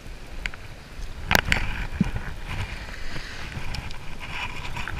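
Small waves washing on a sandy shore, with wind on the microphone. A few sharp clicks and knocks from handling, the loudest pair about a second and a half in.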